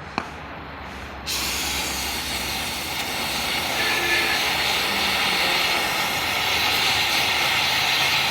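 An electric welding arc, switching on about a second in as a dense, steady crackling hiss and holding for about seven seconds as one continuous weld, then cutting off suddenly.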